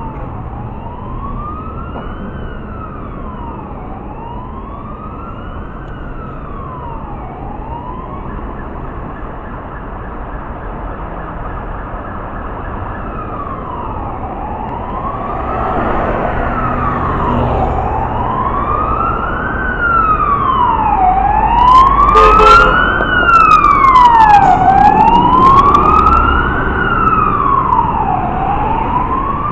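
Fire truck siren in a slow wail, rising and falling about every two and a half seconds and growing louder over the second half as the truck approaches, over steady road-traffic noise. A few sharp clicks sound about two-thirds of the way through, where the siren is loudest.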